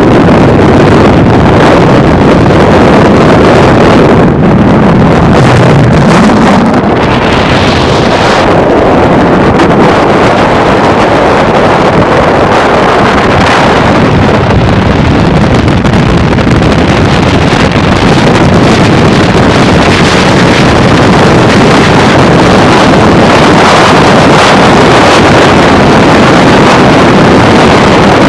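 A car driving at freeway speed, heard as a loud, steady rush of wind on the microphone mixed with road noise.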